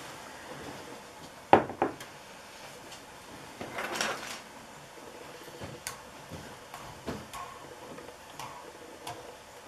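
Objects being handled on a stone workbench: two sharp knocks about one and a half seconds in, a brief scraping rustle around four seconds, and scattered light clicks.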